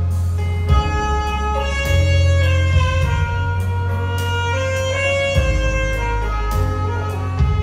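Saxophone playing a gospel melody in long held notes over accompaniment with a deep bass line.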